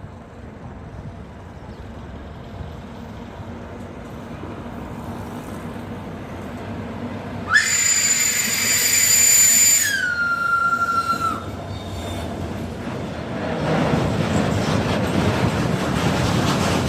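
Freight train approaching with a rumble that grows louder, then the locomotive's horn sounds one long blast of about four seconds, its pitch dropping partway through before it stops. The train then rolls past with a heavy rumble of wagon wheels on the rails.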